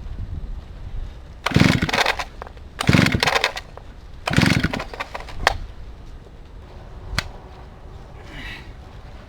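Old Stihl 08 S two-stroke chainsaw being pull-started: three hard pulls on the recoil starter about a second and a half apart, the engine turning over without catching, then a couple of sharp clicks. The saw has stood unused for some 15 years.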